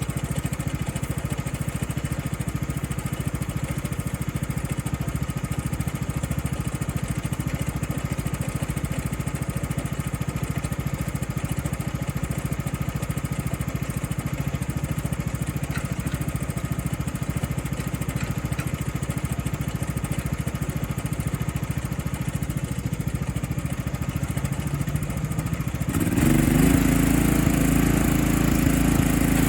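John Deere D110 lawn tractor engine running steadily while the tractor tries to tow a heavy wood chipper. About 26 seconds in, the sound suddenly gets louder and deeper.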